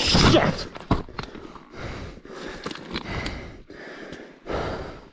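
A person breathing hard close to the microphone, in noisy breaths roughly every second, with a sharp knock about a second in.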